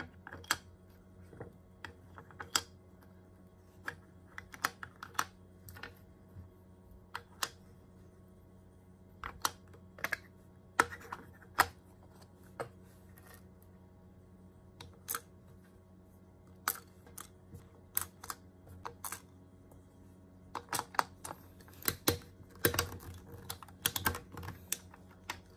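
Hard plastic toy parts clicking and knocking: plastic toy shells set into a plastic holder block, then plastic box sections pressed and fitted together. The clicks come singly and irregularly, growing quicker and denser near the end.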